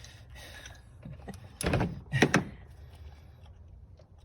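Metal clunking from a spark plug socket and the loosened spark plug being worked out of a car engine's spark plug tube by hand: a short clatter about one and a half seconds in, then two sharper knocks.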